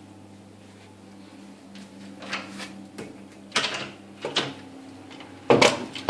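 A door being opened and handled: several short knocks, scrapes and rattles about two, three and a half, four and a half and five and a half seconds in, the last the loudest, over a steady low hum.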